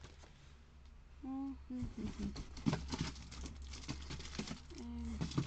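Small clicks and rustles of cosmetic items and packaging being handled, with two brief wordless hums from a woman, one about a second in and one near the end.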